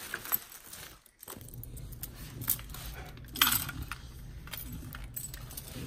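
Metal chain dog leash clinking and jangling in the hands as it is clipped onto the dog's collar, in scattered jingles with the loudest a few seconds in.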